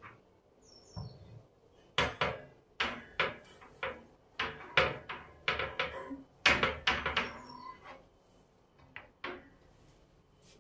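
A run of sharp household knocks and clatters, about a dozen over some six seconds, with short ringing after each, as things are handled and put away during cleaning.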